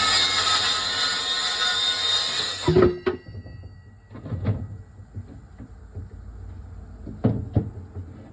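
Handheld power tool's electric motor running at full speed with a high whine, cutting off suddenly about three seconds in. A few scattered knocks follow.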